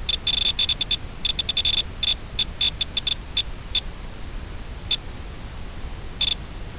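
Steady static hiss from an analog FPV video link, with irregular runs of short, high electronic beeps through the first four seconds, then two single beeps.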